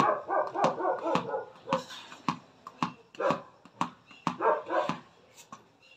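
A dog barking and yipping in a run of short calls, about two a second, with sharp knocks among them from a football being kicked and bounced on a concrete floor.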